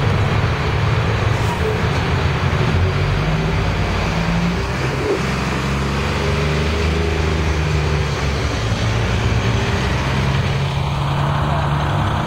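City bus diesel engine running close by as the bus moves along the curb: a loud, steady drone over street traffic.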